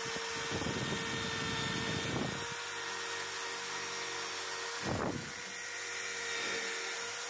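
Handheld power tool with an abrasive head spinning inside the metal barrel of an antique meat grinder, sanding the inner wall clean. A steady motor whine runs throughout, with rough scraping as the abrasive bears on the metal, strongest over the first couple of seconds and again about five seconds in.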